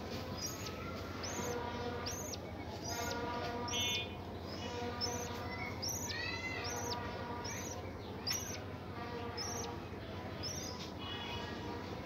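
Budgerigars in a nest box chirping: a regular series of short, high chirps, a little more than one a second.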